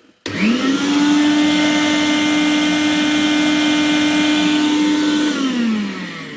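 Electric meat grinder's motor switched on: it spins up about a quarter second in, runs with a steady whine for about five seconds, then winds down near the end. The motor runs but the output shaft does not turn, a failure in the gearbox, which the owner suspects has melted plastic gears.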